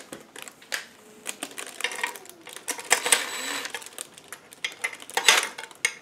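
Clicks, knocks and plastic packaging rustling as a ceiling fan's metal mounting bracket is handled, with a short whir of a cordless DeWalt drill about five seconds in, as it is set to back out a bracket screw.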